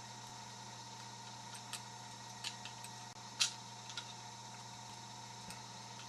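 Scattered small metallic clicks of a pick working inside a Craftsman discus padlock under light tension, about six ticks with the loudest about three and a half seconds in, over a steady low hum.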